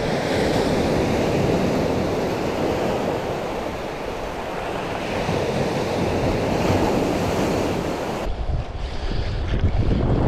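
Small waves breaking and washing steadily onto a pebble shore. About eight seconds in it cuts abruptly to wind buffeting the microphone over open water, a choppy low rumble.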